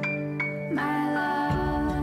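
Soft background music with held notes; a fuller, lower chord comes in about a second and a half in.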